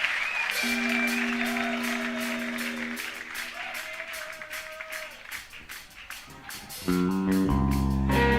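Audience applauding and cheering, with a held instrument note in the first few seconds; about seven seconds in, a live post-punk band comes in loud with bass and guitar.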